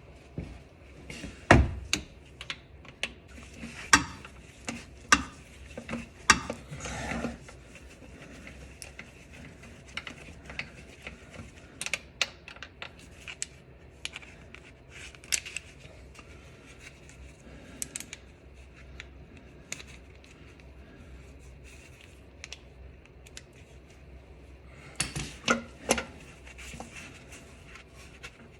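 Scattered metal clinks and knocks as a loosened starter motor is handled and worked around under a car, with several loud knocks in the first seven seconds, sparse light ticks after that, and another small cluster near the end.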